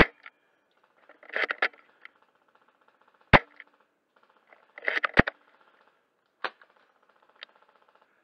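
Novritsch SSG24 spring-powered bolt-action airsoft sniper rifle firing three sharp shots, the first at the start, then about three and five seconds in. Between the shots come short clusters of rattling clicks as the bolt is worked.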